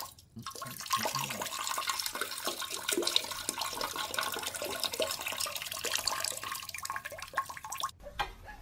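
Toilet flushing: water rushing and splashing in the bowl. It starts about half a second in and stops abruptly near the end.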